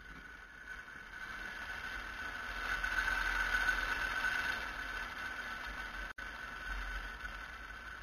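Line cart rolling along an overhead OPGW earth wire: a steady whine over a rushing noise, swelling over the first few seconds and easing off again, with a brief dropout about six seconds in.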